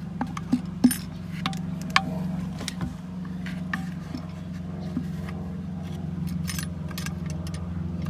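Irregular metal clicks and scrapes of a steel flathead screwdriver tip working a C-clip onto the knob stem inside a Hayward cartridge filter lid's plastic hub; the sharpest clicks come about a second in and at two seconds. A steady low hum runs underneath.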